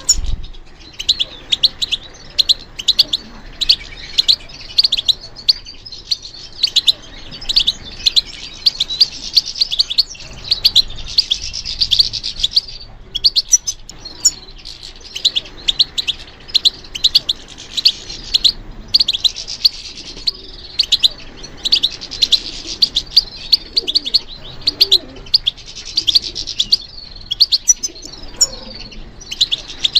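European goldfinch singing: a fast, continuous twittering of high chirps and trills, broken by short pauses between phrases a few times.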